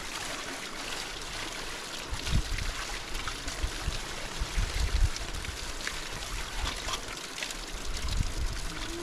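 Steady running-water noise, like a small stream trickling, with a few brief low rumbles, one about two seconds in, one about five seconds in and one near the end.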